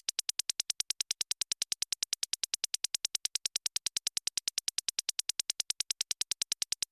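Scrolling-data sound effect: a rapid, even stream of short, sharp electronic ticks, about ten a second, of the kind used for data processing or scanning on a screen.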